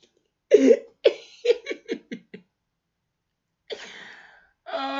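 A man laughing hard into his hand: a run of short, fading bursts from about half a second in, a breathy gasp a little before the end, then his voice rising again right at the end.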